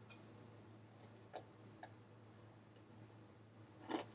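Near silence: a steady low room hum with a few faint, sharp clicks, the last one louder near the end.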